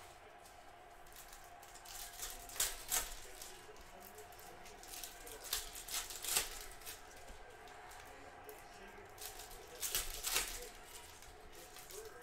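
Foil trading-card pack wrappers crinkling and tearing as they are ripped open and handled, in three bursts about 3, 6 and 10 seconds in.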